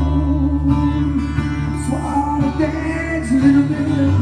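A song playing from a vinyl record on a turntable, in an instrumental stretch between sung lines: a plucked-string melody over steady low notes.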